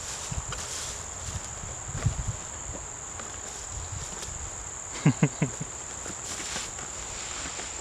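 Insects, crickets, trilling steadily at a high pitch, with a quick cluster of three or four sharp knocks and clicks about five seconds in.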